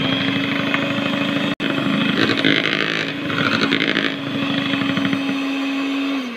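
Electric hand mixer running steadily with a constant motor hum, its beaters whisking egg yolks into whipped egg whites and sugar. It breaks off for an instant about one and a half seconds in, and winds down with a falling pitch as it is switched off at the end.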